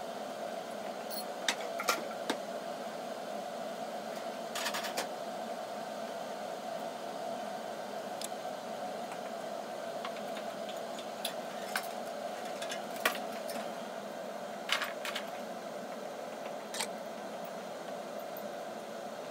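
Ice cubes in an ice-water bath giving scattered sharp clicks and crackles as they crack and settle around a glass beaker. A steady hum runs underneath.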